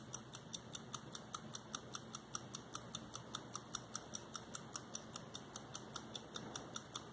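Antique German automaton pocket watch ticking steadily, about five ticks a second.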